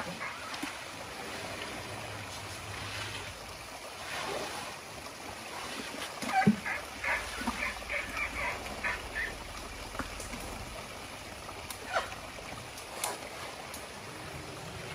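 Shallow forest stream trickling as elephants wade and step through it, with a few splashes and sharp cracks. About six and a half seconds in comes a sharp knock, then a quick run of short high chirps, about four a second, for some two seconds.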